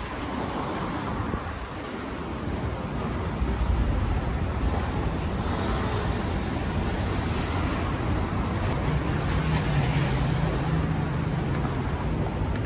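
Road traffic passing on a city street: a steady wash of car engine and tyre noise, with one vehicle's low engine hum standing out for a few seconds near the end.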